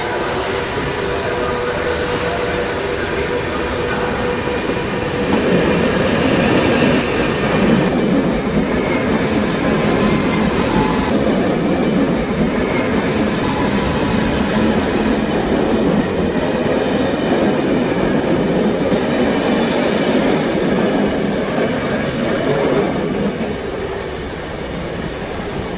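Electric train rolling over station trackwork, its wheels clattering over rail joints and points. The running noise grows louder about five seconds in and fades near the end.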